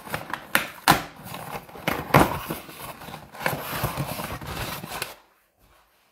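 Packing tape ripped off a cardboard box and the cardboard flaps pulled open: a run of short scratchy tearing and rustling noises that stops suddenly about five seconds in.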